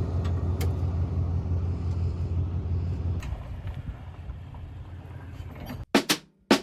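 Steady low drone of a motor vehicle running, which drops in level about three seconds in. Near the end, a few sharp drum hits of music come in.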